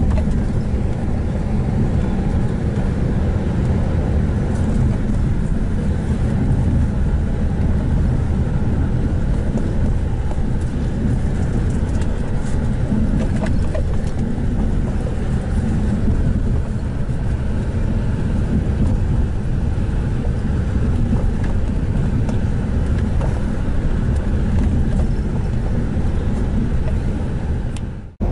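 Car driving at a steady speed: steady engine and road noise, mostly low-pitched, that cuts off suddenly just before the end.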